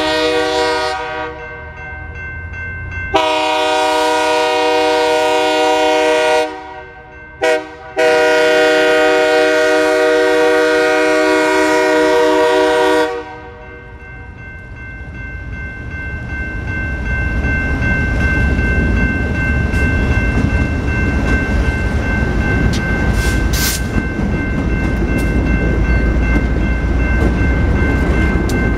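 Diesel locomotive air horn sounding the grade-crossing signal of long, long, short, long, the last blast ending about halfway through. The passing locomotive's diesel engine and the freight train's wheels then make a low rumble that grows louder as the train rolls through the crossing, over the steady ringing of the crossing bell.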